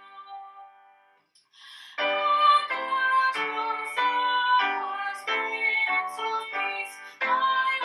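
Hymn music on keyboard: a held chord dies away into a short pause, then the next line starts about two seconds in and moves in steady chordal steps.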